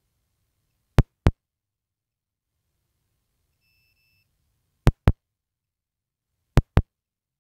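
Three pairs of sharp clicks, the two clicks in each pair about a quarter second apart, with a faint short beep between the first and second pair. Otherwise near silence.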